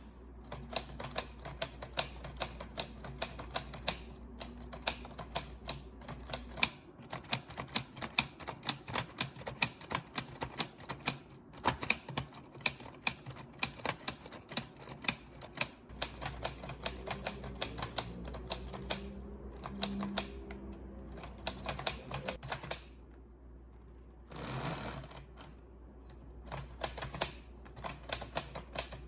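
Keys of a LEGO 21327 Typewriter model being pressed: rapid, irregular plastic clacking in runs with short pauses. There is one brief rasping noise a little over 24 seconds in.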